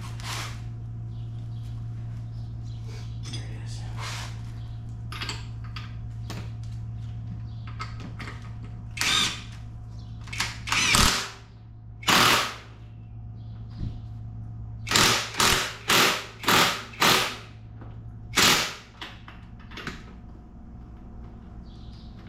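Impact wrench running the strut's top mount nut down in short bursts: a few spaced bursts, then five in quick succession, over a steady low hum.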